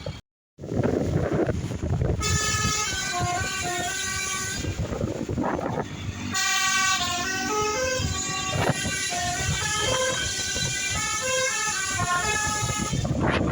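Indonesian 'telolet' bus horn: a multi-trumpet melodic horn playing a stepped, tune-like run of notes. It starts about two seconds in, breaks off for a moment midway and plays a second, longer run, over the rumble of traffic and engine.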